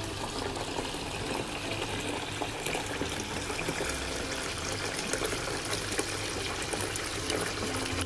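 Steady splashing and trickling of falling water.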